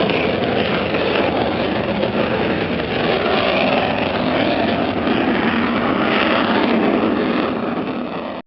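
F-16 fighter jet's engine, a loud steady roar as it flies overhead, cutting off suddenly near the end.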